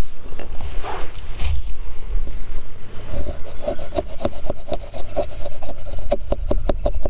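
Knife blade carving curls off a wax-impregnated wooden fire-starter stick, making feather sticks: short repeated scraping strokes start about three seconds in, about two to three a second and quickening toward the end. Low wind rumble on the microphone runs underneath.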